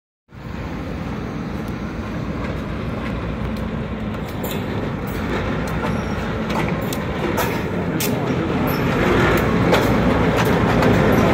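A single diesel locomotive approaches slowly pulling boxcars, its engine making a steady rumble that grows louder as it nears. From about halfway, scattered sharp clicks join in.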